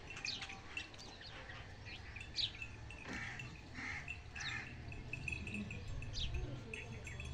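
Several small birds chirping repeatedly, with short, quick notes scattered throughout, over a steady low rumble.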